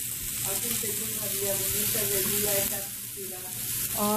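Hot oil sizzling steadily in a frying pan.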